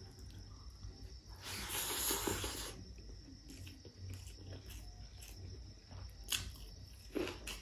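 Close-up mukbang eating sounds: fingers mixing white rice and pork curry on a plate, with chewing and mouth smacks. A hissing noise runs for about a second around two seconds in, and sharp mouth clicks come near the end.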